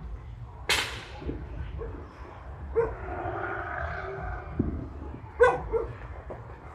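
Dog barking outdoors, with a sharp crack about a second in, and the dog's longer drawn-out call in the middle.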